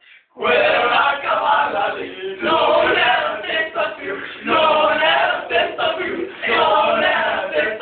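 A group of young men chanting loudly together in unison, in four phrases of about two seconds each with short breaks between them.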